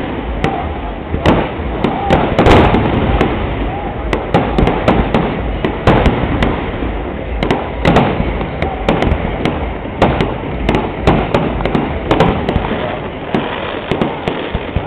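Aerial fireworks shells bursting in quick, irregular succession, several sharp bangs a second over a continuous rumble and crackle.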